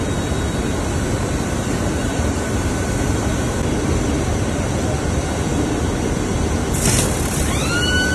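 Rotogravure printing machine running: a steady, dense mechanical rush. About seven seconds in there is a short hiss, and just before the end a high steady tone begins.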